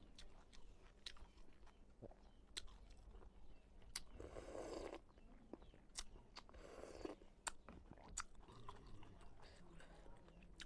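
Faint close-miked eating sounds: chewing with sharp mouth clicks and smacks throughout, and two short slurps of soup from a spoon about four and six and a half seconds in.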